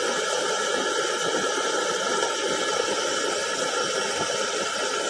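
Stainless steel electric kettle heating water, a steady, even hiss.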